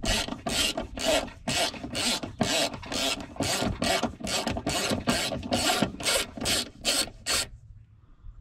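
Hand ratchet on a socket extension loosening the battery hold-down bolt, clicking in short rasping strokes about two and a half times a second, stopping near the end.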